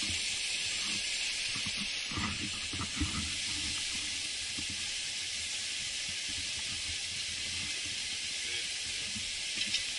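Steady high hiss, with a few faint low knocks about two to three seconds in.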